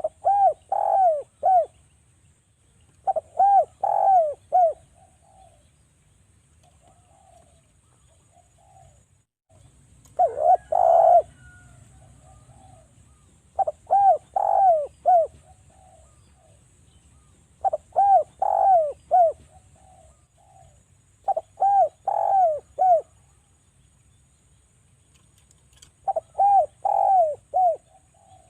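Spotted dove (derkuku) cooing: seven quick phrases of four to five rolling coos each, repeated every few seconds, with a longer pause between the second and third phrases.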